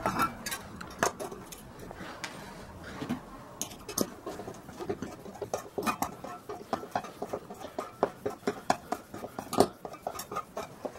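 Stainless-steel toilet roll holder clinking and clicking against its wall mount and screws while a screwdriver works on it: irregular sharp metal clicks, thicker from about four seconds in, with one louder clink near the end.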